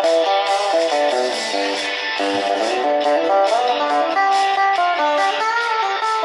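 Guitar music, a melody of many short notes played over chords.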